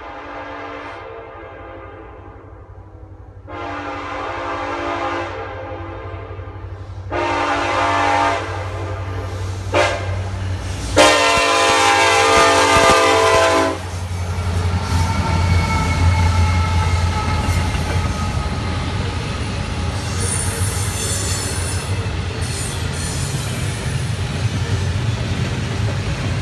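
Nathan K5LLA five-chime horn on a GE ET44AC locomotive blowing long, long, short, long, the grade-crossing signal, as the train comes up. From about halfway through, the locomotives' diesel engines rumble past, followed by the steady clatter of double-stack intermodal cars with faint wheel squeal.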